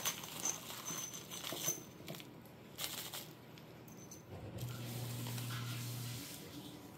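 A small plastic parts bag rustling and crinkling as steel bolts and washers are tipped out of it, with light metallic clicks as they land on the cloth-covered table. About two-thirds of the way through comes a steady low hum lasting a second and a half.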